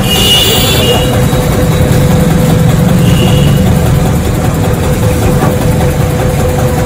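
Tractor engine running steadily: a loud, even low rumble with a steady hum.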